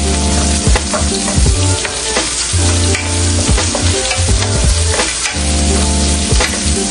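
Sliced onions sizzling in hot oil in a frying pan, with light clicks as the pieces are spread and turned by hand. A low steady tone comes and goes underneath.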